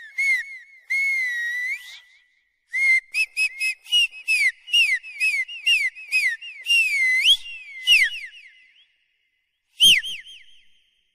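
A dog whining while mating: high, falling whimpers several a second, with a longer wavering whine about a second in and another around seven seconds. The whimpers stop about eight seconds in, and one last short whimper comes near ten seconds.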